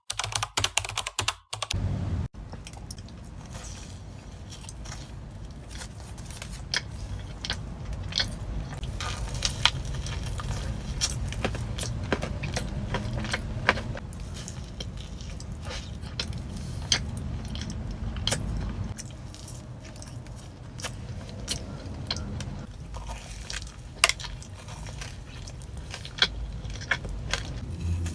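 Close-miked eating of donuts: chewing with irregular sharp mouth clicks and lip smacks, with a denser run of clicks in the first couple of seconds.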